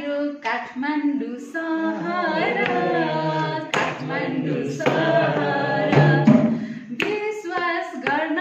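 Unaccompanied singing of a song, with long held notes that bend in pitch and a few short breaths between phrases.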